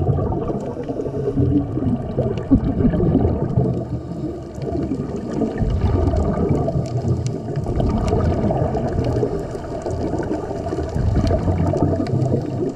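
Muffled underwater sound through a camera housing: scuba regulator exhaust bubbles gurgling over a low churning rumble, with a few faint clicks.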